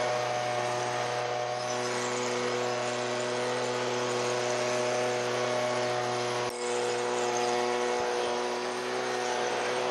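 Small gasoline engine running steadily at a constant high speed, with a sharp click and brief dip about six and a half seconds in.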